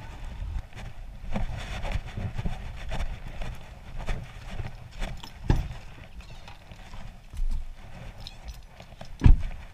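Footsteps crunching on gravel and pavement at a walking pace, an irregular series of short steps, with a sharp thump near the end as the pickup door is handled.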